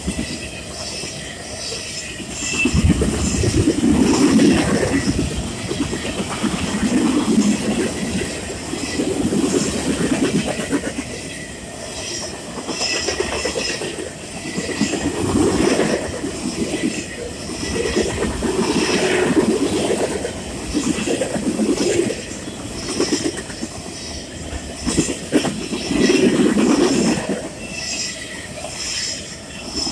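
Freight cars of a mixed freight train rolling past close by: a steady rumble of steel wheels on rail that swells and fades every two to three seconds as the cars' wheel sets go by. Clickety-clack over the rail joints and a faint wheel squeal now and then.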